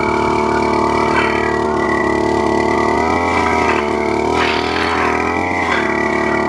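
Brush cutter engine running at high revs while driving a weeding blade through a rice paddy, its pitch dipping and recovering several times in the second half as the blade takes load.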